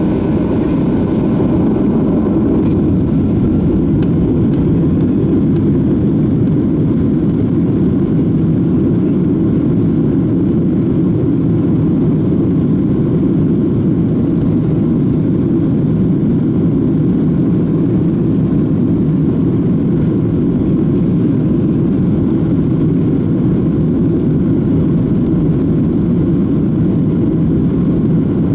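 Boeing 737-700's CFM56-7B jet engines running at a steady, loud level, heard from inside the passenger cabin as a deep even noise.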